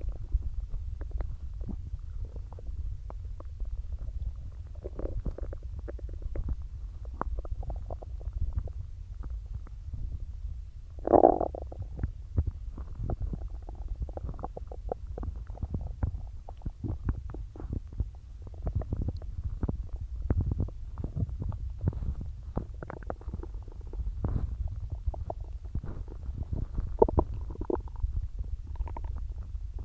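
A person's stomach gurgling, with a continuous low rumble and many small pops and crackles. One louder, fuller gurgle comes about eleven seconds in.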